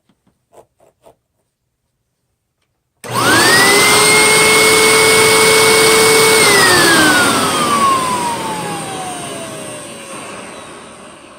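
Hoover SteamVac Widepath's 9.2-amp fan motor running with its intake sealed for a suction test: after a few faint clicks it starts about three seconds in, spins up within a fraction of a second to a loud, steady high whine, and a few seconds later is switched off and winds down with a slowly falling whine.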